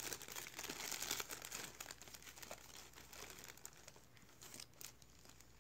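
Faint crinkling of a plastic bag being handled, busiest in the first second or two and then thinning to occasional crackles.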